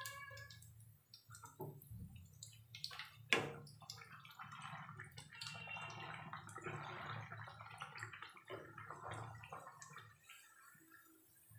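Malpua deep-frying in hot oil, the oil sizzling and bubbling, with clicks and scrapes of a slotted steel spoon against the pan. There is one sharp knock about three seconds in, and the sizzling grows denser about halfway through as oil is spooned over the malpua.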